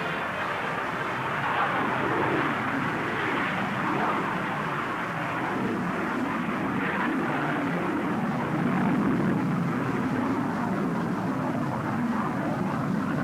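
Jet aircraft engine noise, a steady rushing sound that swells a little and eases off, with no music or narration over it.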